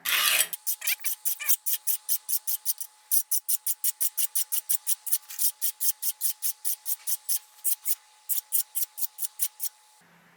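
Fine metal file rasping along the edge of a steel kitchen knife in quick, even strokes, about five a second, filing out chips and notches in the edge.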